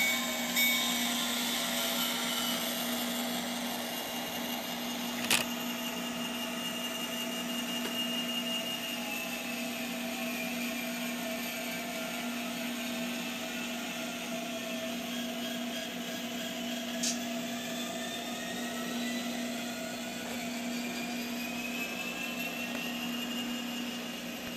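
Tsunami sound decoder in an N scale F59PHI model diesel locomotive playing the sound of its diesel engine running, through the model's tiny speaker, with a steady hum and slowly rising and falling whines over it. A sharp click about five seconds in and another near seventeen seconds.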